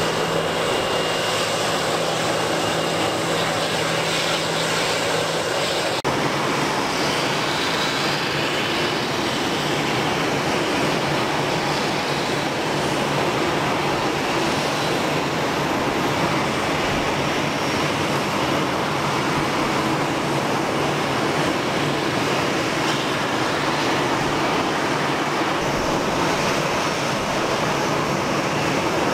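Airbus A340-300's four CFM56 turbofan engines running at taxi power: a steady jet hum and whine with no rise or fall. The sound shifts abruptly about six seconds in.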